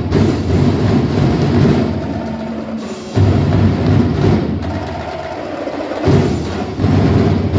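Festival dance music driven by heavy drums and percussion; the drumming drops out twice and comes back in.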